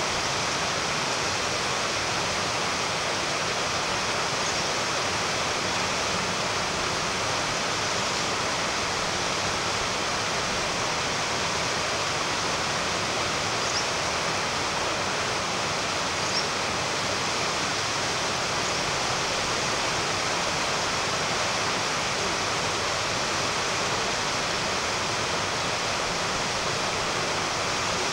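Rocky mountain stream rushing over small cascades between boulders: a steady, unbroken rush of white water.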